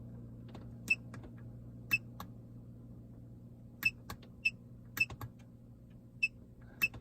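Irregular sharp clicks, about ten in seven seconds, over a steady low electrical hum from a Mercedes CLA45 AMG with the ignition on and the engine off while its engine control unit is being reflashed.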